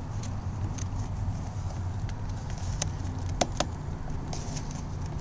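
A few sharp plastic clicks and knocks as a headlight bulb and connector are fitted into the Mustang's headlight housing, over a steady low rumble.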